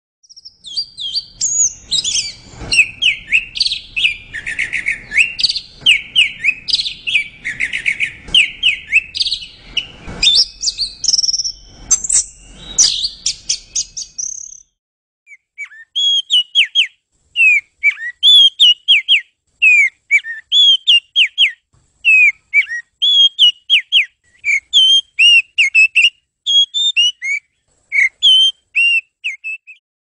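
Orange-headed thrush singing a rapid, varied, run-together warbling song for about the first half. After a short break, an oriental magpie-robin sings a series of clear, separate whistled notes.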